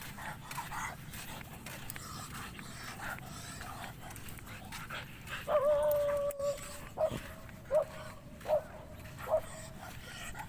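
A dog whining: one long high whine about halfway through, then a run of short whines, a little under one a second.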